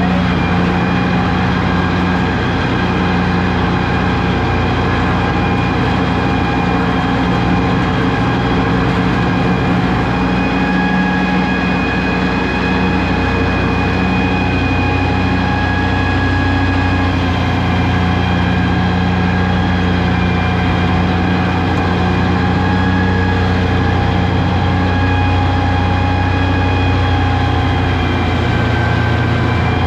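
Diesel tractor engine running steadily at one constant speed, a low, even drone with a faint steady whine above it.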